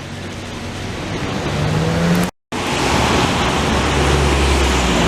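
Boeing 737-200 passing low on landing approach, the jet noise of its Pratt & Whitney JT8D engines growing louder and screaming. It cuts off abruptly about two seconds in, then loud, steady jet noise carries on.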